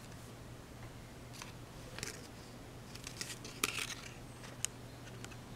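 Faint, scattered crinkles and rustles of a small foil candy-wrapper boat being handled in the fingers, a few short crackles, with a steady low hum underneath.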